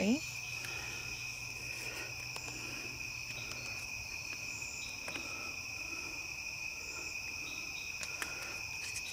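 Night insect chorus of crickets: a steady, continuous high-pitched trilling in two pitches, with a few faint clicks.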